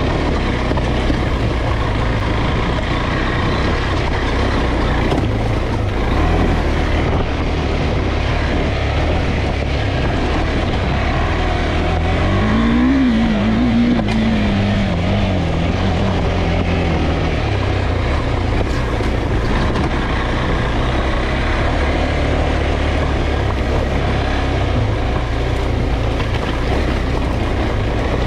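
KTM 390 Adventure's single-cylinder engine pulling the bike up a rocky track off road. The revs rise about twelve seconds in, waver, and ease off again a few seconds later.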